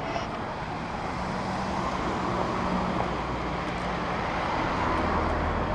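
Road traffic: a motor vehicle going by on the street, a steady engine and tyre noise that grows slowly louder.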